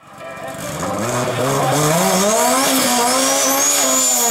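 Toyota Corolla's engine revving up and held at high revs during a burnout, its rear tyres spinning and squealing. The sound fades in over the first second or so, and the engine pitch climbs before levelling off.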